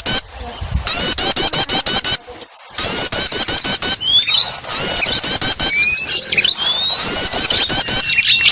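Small songbirds calling in a bird-lure recording: a fast run of sharp, high, repeated chirps, about six a second, broken twice by brief gaps. Rising whistled notes from other birds join in from about four seconds in.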